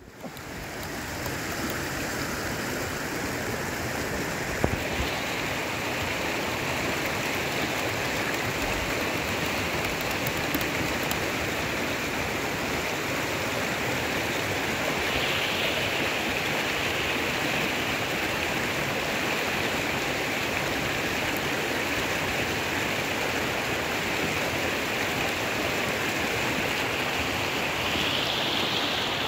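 Mountain creek running over stones: a steady, even rushing of water.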